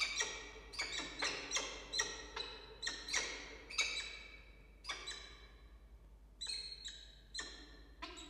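Peregrine falcons calling in a rapid series of short, sharp, high calls, about two a second, as a mate arrives at the nest ledge with prey; the calls thin out and fade after about four seconds.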